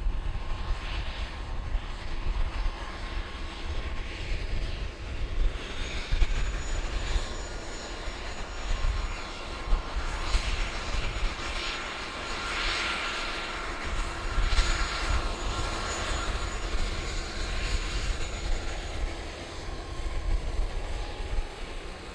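Aircraft engines running, with a faint high steady whine that comes in through the middle stretch and swells around its middle, while wind buffets the microphone.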